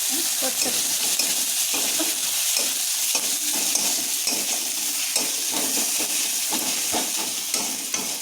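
Food sizzling in a hot pan on the stove while a spoon stirs and scrapes it, with a steady hiss and irregular scrapes.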